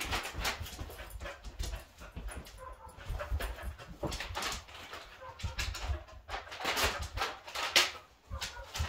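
Small excited dog whining, its claws clicking and scrabbling on a tile floor, with a plastic treat bag crinkling in the hand.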